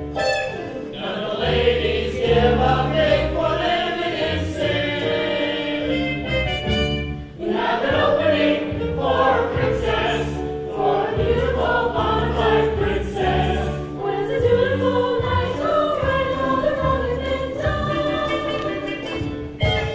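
Stage musical number: the cast singing together as a chorus over an instrumental accompaniment with a steady bass line.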